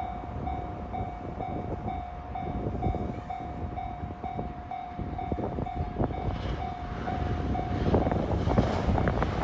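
Japanese level-crossing warning bell ringing an electronic ding about twice a second over a low rumble. From about six seconds in, a train can be heard coming through, and near the end its wheels clicking over the rail joints cover the bell.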